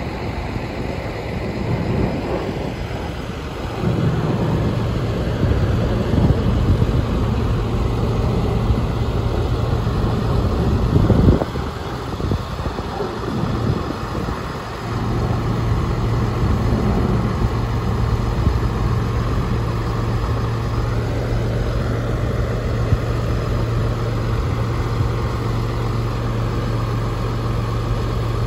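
Diesel tractor engine idling with a steady hum, under the broad rumble of two Boeing C-17A Globemaster jet transports flying overhead. A brief louder rush of noise comes about eleven seconds in.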